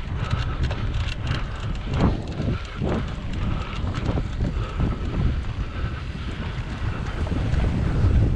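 Wind buffeting the microphone of a cyclocross bike's onboard camera, over a steady low rumble. Frequent sharp rattles and knocks come from the bike jolting across rough grassy ground.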